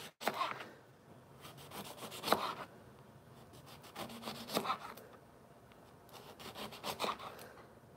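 Kitchen knife sawing through a lemon on a cutting board, a few quick back-and-forth strokes per slice, four slices about two seconds apart.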